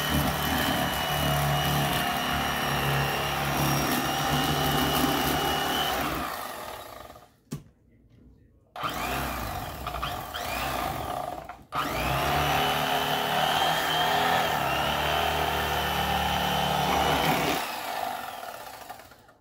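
Electric fillet knife running as it saws through a crappie, with a steady motor whine. It stops about six seconds in, runs again for a few seconds, cuts out for a moment, then runs once more and stops near the end.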